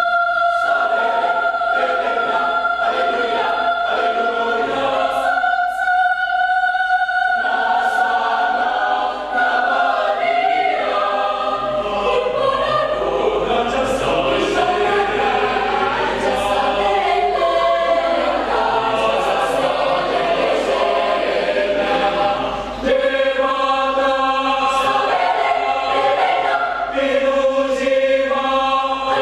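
Mixed church choir singing a cappella in several parts, with long held chords and moving harmonies.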